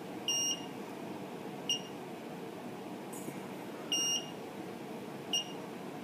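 Manson SDC-6203 car power adapter's low-battery warning beeper: four high-pitched beeps, long and short in turn, about every one and a half seconds. It warns that the supply voltage has sagged to about 11.5 V under a heavy current draw. A steady low hum runs underneath.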